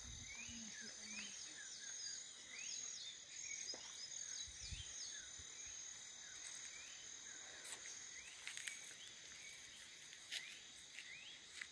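Dusk insect chorus of crickets: a steady high-pitched trilling, with many short rising chirps repeating over it, thickest in the first few seconds. A few faint clicks near the end.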